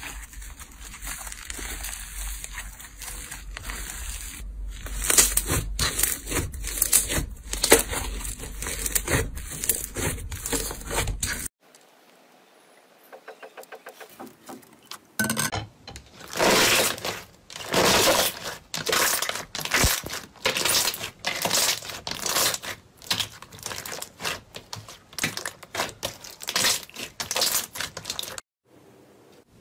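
Slime being pressed, poked and stretched by hand, giving many short crunchy crackles and pops in quick irregular succession. The sound cuts off suddenly twice, as one clip gives way to the next, with a quieter stretch of faint fast ticking in between.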